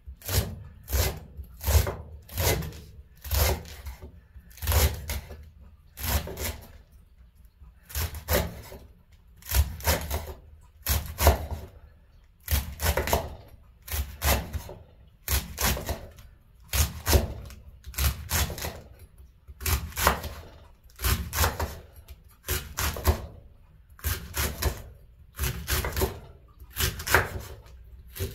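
Chef's knife chopping through green cabbage leaves onto a wooden cutting board: a steady, even rhythm of crisp cuts, each ending in a knock of the blade on the board.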